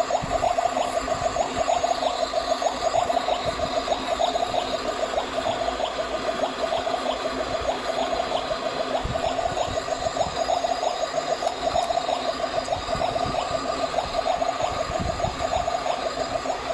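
Battery-operated toy kitchen's electronic stovetop cooking sound effect, a steady fluttering bubbling noise that runs without a break.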